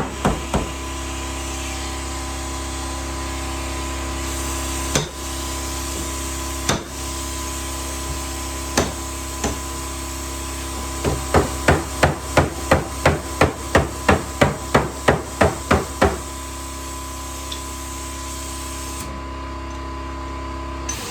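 Hammer tapping on the sheet metal of a car door during dent repair: a few scattered blows, then a quick run of about fifteen taps at roughly three a second, over a steady hum.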